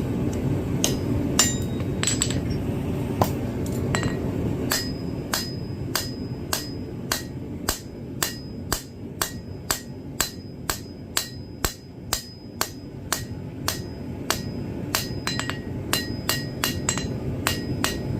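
Hand hammer striking hot iron bar stock on an anvil to draw out a taper. There are a few spaced blows, then a steady run of about two blows a second, each with a short high ring from the anvil. A steady low roar from the lit forge runs underneath.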